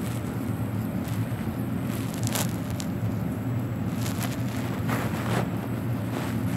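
Steady low background hum, with a few soft short taps of a fingertip on a tablet touchscreen during typing.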